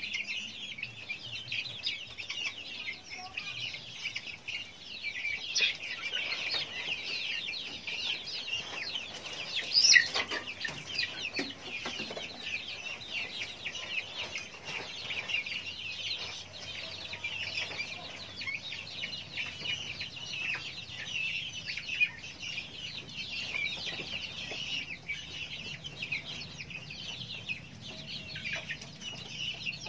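A flock of young fowl chirping constantly, many high peeping calls overlapping, with one brief louder sound about ten seconds in.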